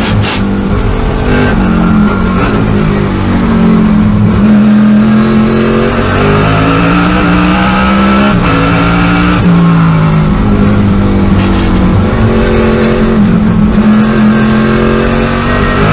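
Ford Falcon Trans Am race car's V8 engine heard from inside the cockpit at racing speed. Its pitch climbs hard under acceleration and drops at each gear change and under braking, with a sharp drop about nine seconds in before it climbs again.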